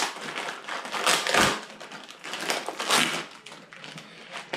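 A clear plastic parts bag crinkling and rustling in short bursts as it is opened and handled by hand.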